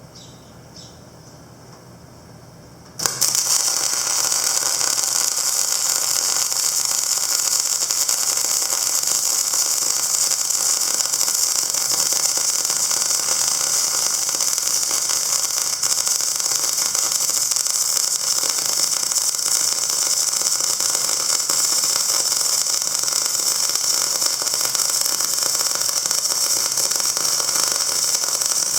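A loud steady hiss that starts suddenly about three seconds in and holds even.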